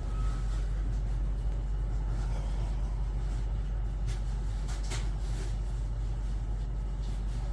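Steady low rumble of an idling vehicle engine, with a few faint clicks.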